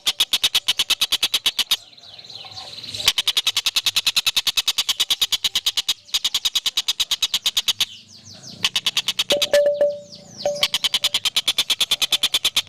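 A songbird singing a rapid, even trill of sharp chirps, about nine a second, broken twice by short runs of quick falling notes.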